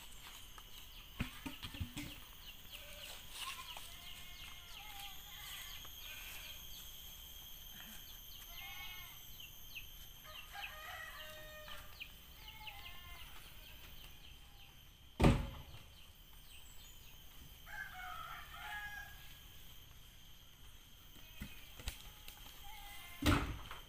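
Chickens clucking and a rooster crowing now and then, over a faint steady high insect hum. Two loud heavy thuds, about two-thirds of the way in and again near the end, as rubber-wood logs are dropped onto the truck's load.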